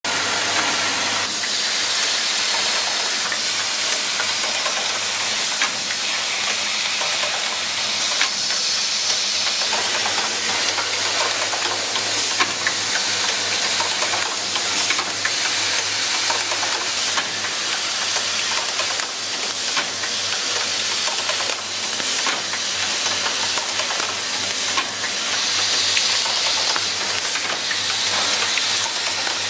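Automatic assembly machine running, with its vibratory bowl feeder and pneumatic stations: a steady hiss over a low hum, with frequent short clicks of parts and actuators throughout.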